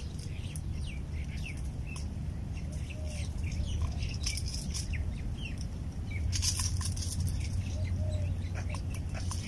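Steady wind rumble on the microphone with faint scattered bird chirps, over small snips, ticks and scrapes of a blade cutting open a barracuda's belly. A louder rustling scrape comes about six to seven seconds in.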